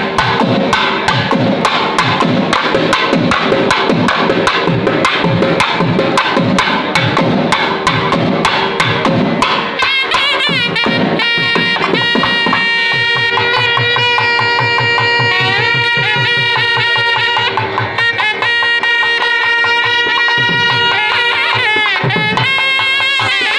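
South Indian temple ensemble: fast thavil drumming for about the first ten seconds, then nadaswaram double-reed pipes take up a loud, held melody with sliding notes, joined by occasional drum strokes.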